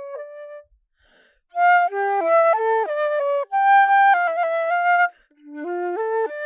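Flute playing a melody of quick stepping notes in short phrases. The melody breaks off for a short pause about a second in and again briefly near the end.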